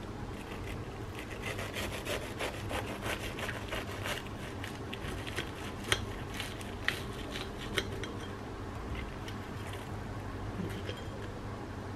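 A knife saws back and forth through a deep-fried, breadcrumb-coated bread pocket. The crisp crust crackles under the blade in many short clicks, with three sharper clicks between about six and eight seconds in.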